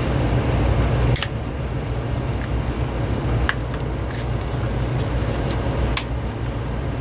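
Steady low background hum with a few sharp, light clicks of small plastic parts being handled. The loudest click comes about a second in, and the hum drops a little after it.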